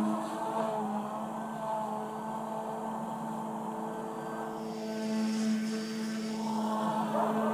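OMP M1 micro electric RC helicopter in flight: the steady hum and whine of its motors and spinning rotors. About halfway through, the pitch dips and then climbs back up.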